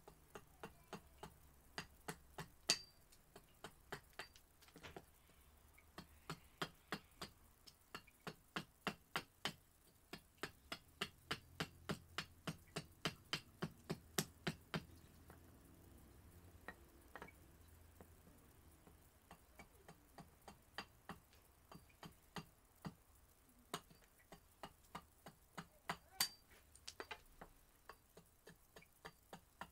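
Gränsfors Bruk Large Swedish Carving Axe taking small, quick chopping cuts into a cherry spoon blank, roughing out its shape. Sharp, short wood-chopping clicks come in runs of about three a second, with brief pauses between runs.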